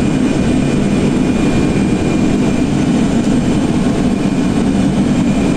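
Steady cabin noise of airflow and engines inside an Ilyushin Il-86 flight deck in flight: a deep, even rumble with a faint thin steady tone above it.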